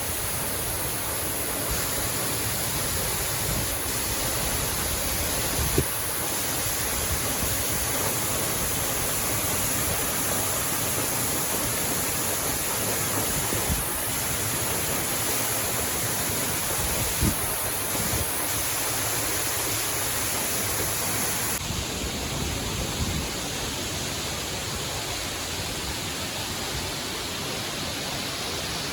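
Steady rushing of a waterfall, water falling about seven metres into a pool, with a few faint knocks over it. About three-quarters of the way through it turns a little quieter and duller.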